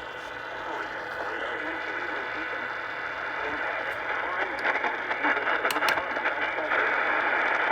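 Radio receiver hissing with static, faint voices lost in the noise. The hiss grows louder about halfway through, with two sharp clicks about six seconds in.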